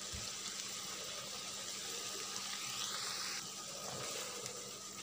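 Beef and greens sizzling and bubbling in sauce in a wok, a steady hiss.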